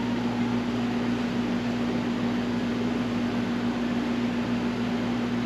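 Steady hum of an electric fan or blower motor running, a constant low tone over a hiss of moving air.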